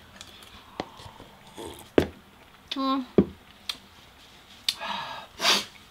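Eating and drinking sounds at a table: a few sharp clicks and knocks of a spoon, glass and ice cream tub, the loudest about two seconds in. There is a short hum just before three seconds and a breathy hiss of air through the mouth near the end, from a mouth burning from very spicy noodles.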